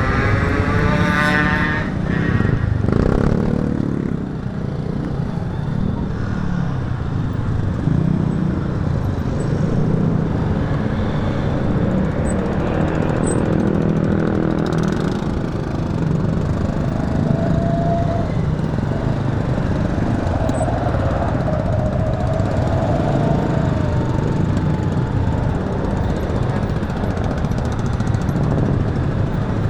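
Motorcycle riding in heavy traffic: a steady engine drone and road noise, with a rising engine whine near the start as it speeds up.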